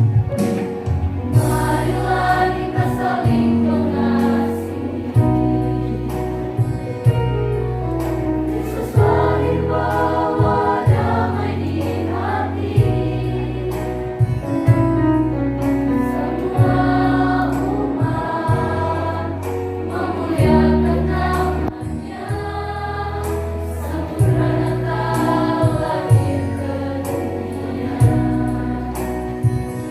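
Mixed choir of young men and women singing a Christian praise song, with instrumental accompaniment and bass notes underneath.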